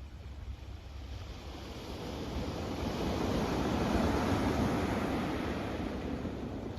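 Sea surf: a wave builds, breaks about four seconds in and washes back down, over a steady low rumble of wind on the microphone.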